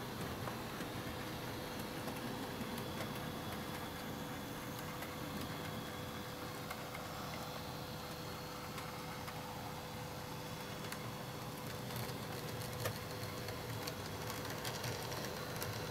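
N gauge model Class 47 locomotive running along the track with its coaches: a steady small-motor whirr and wheel noise on the rails, with a few faint clicks in the last few seconds.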